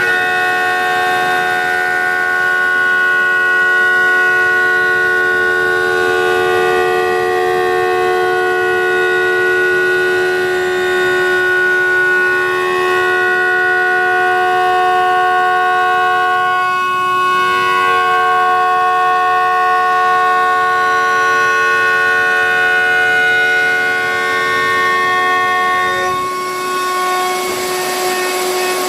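CNC router spindle milling a wooden guitar neck: a steady whine of several high tones over a hiss of cutting, the pitch dipping briefly about halfway through and shifting again near the end as the load changes.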